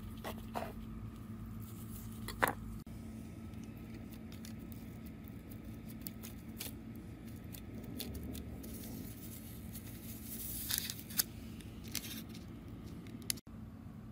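Soft scattered taps and rustles of hands working cinnamon-roll dough, slices being cut on a silicone mat and pressed flat on baking paper, over a steady low hum.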